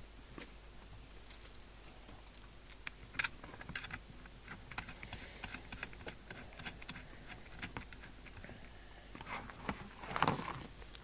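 Channel selector of an SMC Oscar 1 CB radio clicking irregularly as it is flicked round the channels, with a brief louder rush of noise about ten seconds in.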